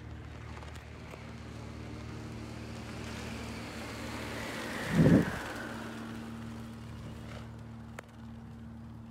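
Rushing air of a ram-air parachute canopy diving past on a swoop landing: a hiss that swells and then drops in pitch as it goes by. About halfway a loud gust of wind hits the microphone, over a steady low hum.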